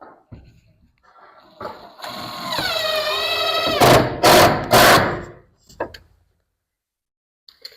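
A power tool's motor whines for about two seconds, its pitch dipping and then holding steady. Three loud, sharp knocks follow in quick succession.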